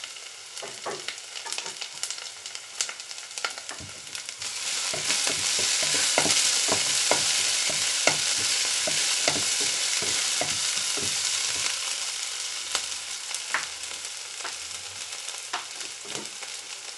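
Sliced onions and green chillies frying in oil in a nonstick pot, sizzling, with a wooden spatula scraping and knocking against the pan as they are stirred. The sizzle grows louder about four seconds in and eases off toward the end.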